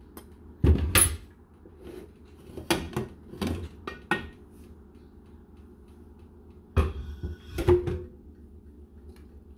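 Aluminium pressure cooker lid being worked loose and lifted off the pot: a string of metal knocks and clanks, with two louder clatters about seven seconds in.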